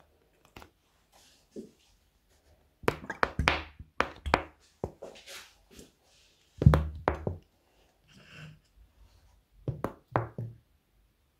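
Plastic bottle of clear glue being squeezed, upended and knocked while glue is poured into a plastic cup: irregular clusters of crackles and thumps, the loudest about seven seconds in, with a brief hiss about eight seconds in.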